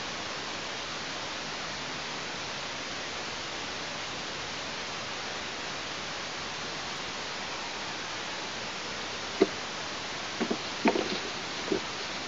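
Steady hiss on an outdoor nest camera's microphone, with a few short, sharp knocks starting about nine seconds in.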